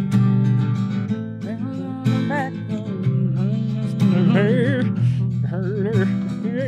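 Acoustic guitar being strummed. From about a second and a half in, a voice rises and falls in pitch over the chords.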